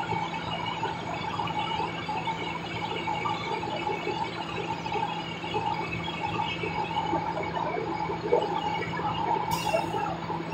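Steady mechanical hum holding several constant tones, like a motor or engine running without change, with a short high rattle near the end.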